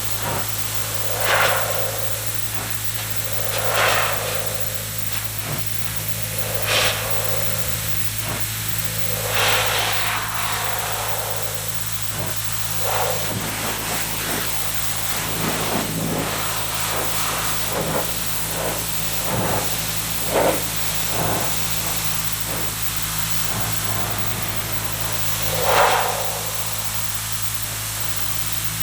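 Pressure washer running: a steady motor hum under the hiss of the spray jet, which swells in repeated sweeps about every two and a half seconds, then more irregularly, as the jet passes over a moss-covered car body.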